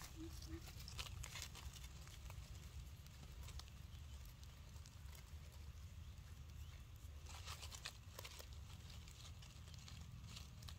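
Faint, scattered crackling and rustling of dry leaf litter as a baby monkey moves over the forest floor, over a low steady rumble. A short run of low pulsed tones, about four a second, stops about half a second in.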